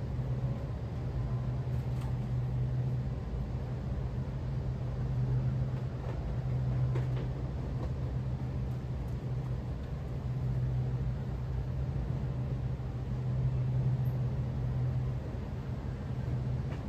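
Bard wall-mount air conditioner running with its newly replaced condenser fan motor: a steady mechanical hum with a low droning tone that swells and fades every few seconds, and a few faint ticks.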